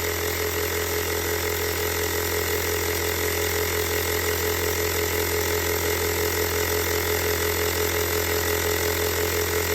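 Portable battery-powered air compressor (ULiXWH jump starter/compressor) running steadily with a low hum and rapid mechanical clatter while inflating a tire, still short of its 30 PSI automatic shut-off.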